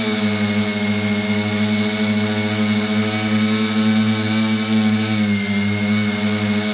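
Bambucopter Bluebird tricopter's electric motors and propellers running in flight, a steady multi-tone buzzing whine recorded from the camera on board, its pitch dipping slightly about five and a half seconds in.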